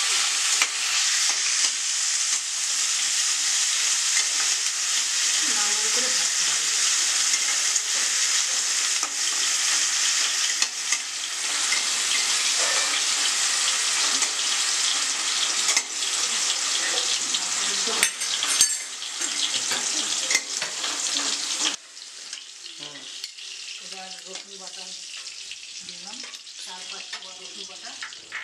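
Onion paste sizzling in hot oil in a steel kadai, with a metal spatula scraping and clicking against the pan as it is stirred. About three-quarters of the way through, the sizzle drops suddenly to a much quieter level.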